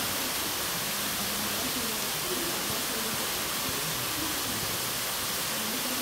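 A waterfall and spring spouts pouring water in a steady, unbroken rush.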